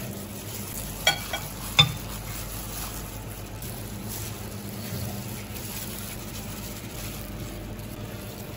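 Chicken legs deep-frying in hot oil in a wok, a steady sizzle. About one and two seconds in there are two short metallic clinks.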